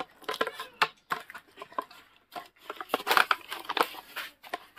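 Dry broom grass rustling and crackling as a bundled grass broom is forced down into its tubular handle, in irregular bursts that are loudest about three seconds in.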